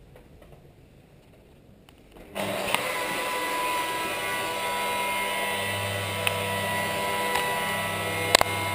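Electric rotary polisher with a foam pad, switched on about two seconds in and then running steadily with a high motor whine against the van's paintwork. A few sharp clicks come through it, the loudest near the end.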